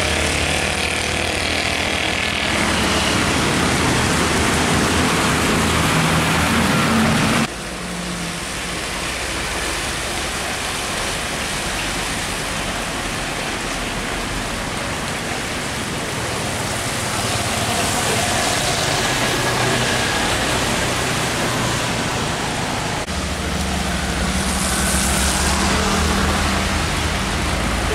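Heavy diesel trucks passing on a wet road: engines running under a steady hiss of tyre spray and rain. The sound drops abruptly about seven seconds in, and a deep truck engine grows loud again in the last few seconds.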